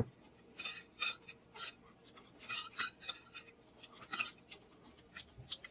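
Cutlery scraping and clinking against a plate in a series of short, irregular scrapes and clicks.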